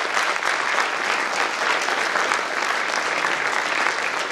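Audience applauding steadily, a dense mass of many hands clapping.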